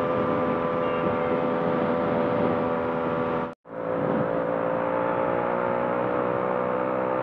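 Yamaha RX two-stroke single-cylinder motorcycle engine running steadily at cruising speed, heard from the rider's seat with wind and road noise; the bike runs an inbuilt expansion-chamber exhaust. The sound cuts out for an instant about three and a half seconds in, and then the engine note slowly climbs.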